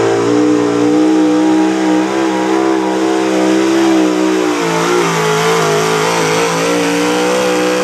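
Big-block V8 of a Chevrolet square-body pulling truck held at full throttle while dragging the pulling sled. Its note stays high and steady, wavering briefly about two-thirds of the way in.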